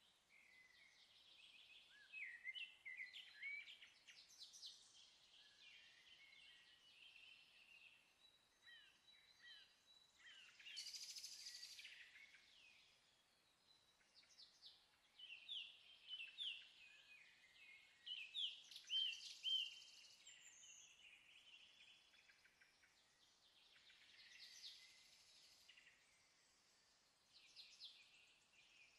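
Faint birdsong: several birds chirping and trilling on and off, with short rising and falling calls.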